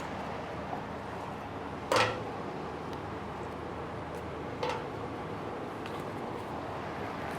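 Steady whoosh of a running electric fan, with a sharp click about two seconds in and a softer one near five seconds as a small object is handled.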